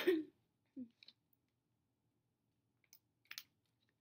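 Plastic water bottle cap twisted open, with a sharp crackle right at the start, followed by a few faint plastic clicks about three seconds in.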